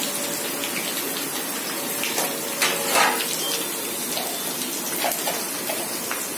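Hot oil sizzling in a kadhai as freshly added chopped green chillies fry with cumin and coriander seeds: a steady hiss with a few louder crackles about two to three seconds in.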